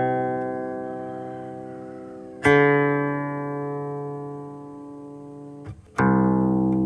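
Guqin, the Chinese seven-string zither, plucked in single low notes that each ring on for a few seconds and fade slowly. A new note is struck about two and a half seconds in and another near the end, just after a brief click.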